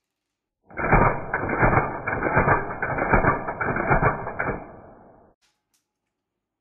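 KSC/KWA HK417 gas blowback airsoft rifle firing a long rapid burst, its bolt cycling back and forth in a fast stream of sharp clacks. The burst starts under a second in, weakens near the end and stops abruptly.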